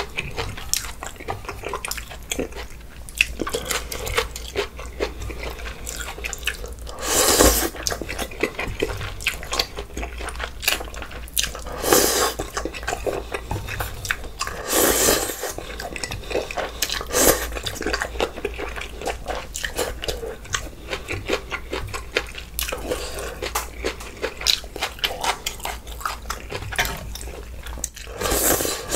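Close-miked eating of bulgogi hot pot with glass noodles, kimchi and rice: wet chewing and smacking with many small clicks, and several louder slurps spread through.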